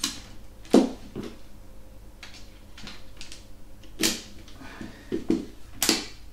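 Metal poles of an ALITE Mayfly folding camp chair frame being fitted together by hand: a series of sharp clicks and knocks, the loudest about three-quarters of a second in.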